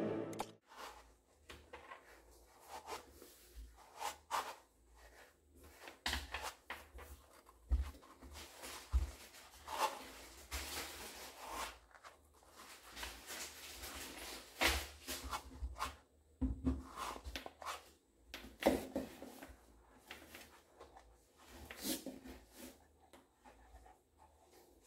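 Soft, irregular rustling and rubbing with light knocks from a seated person's legs moving: sheer nylon pantyhose brushing and a red suede high-heeled pump dangling and slipping on the foot, with a few dull low thumps.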